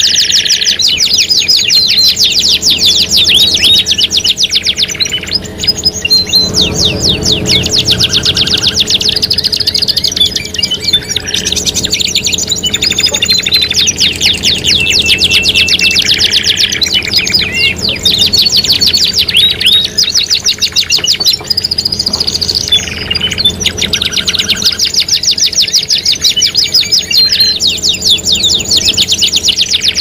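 Canaries singing without pause in fast trills and rolls, several songs layered over one another, with the chirps of other caged songbirds mixed in.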